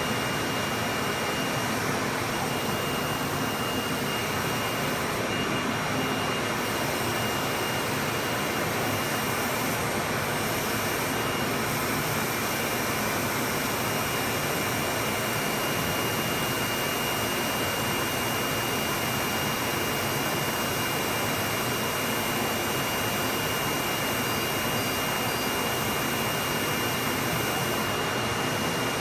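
Steady rush of running shop machinery, even throughout, with a thin constant high whine.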